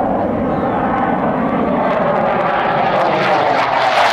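A Blue Angels F/A-18 Hornet jet flying overhead: loud jet engine noise with slowly falling tones that grows louder and harsher in the last second as the jet passes close above.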